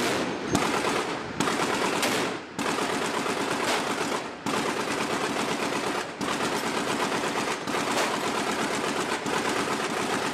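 Machine gun firing long rapid bursts, broken by short pauses every one and a half to two seconds.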